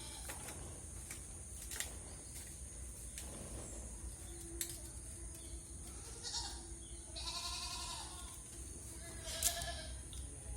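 Goats bleating: three calls in the second half, the middle one longest at about a second, over a steady low hum.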